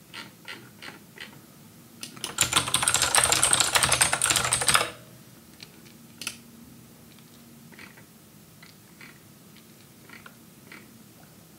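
Fast typing on a computer keyboard: a dense run of key clicks lasting about two and a half seconds, with a few single clicks before and after it.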